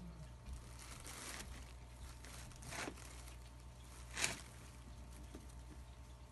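Clear plastic bag crinkling as an animal shifts on it: a few short rustles, the loudest and sharpest about four seconds in.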